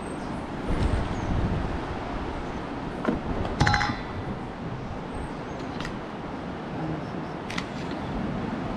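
Steady low outdoor rumble, with a few light clicks and taps as spice bottles are handled and shaken over a stainless steel bowl, and one brief ringing clink about three and a half seconds in.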